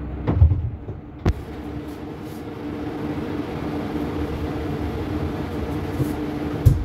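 Steady mechanical hum with a constant low tone, from a running machine. A sharp click comes about a second in, and dull knocks come near the start and near the end.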